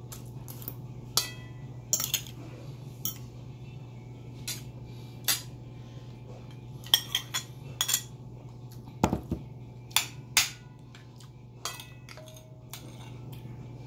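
Metal spoon and fork clinking and scraping against plates in scattered sharp clicks, as food is eaten and scraped from one plate onto another. A steady low hum runs underneath.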